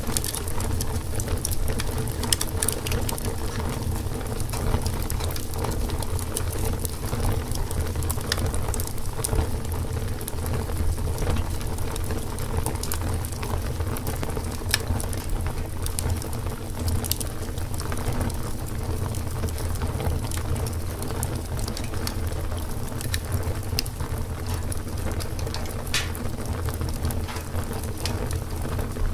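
Wood fire burning: a steady low rush of flames with irregular sharp crackles and pops from the burning wood.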